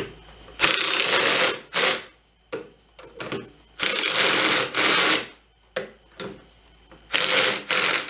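Cordless impact driver run in three bursts of about a second each, tightening the nuts that hold a leveling spacer to the top of a truck's front strut assembly. There are small clicks between the bursts.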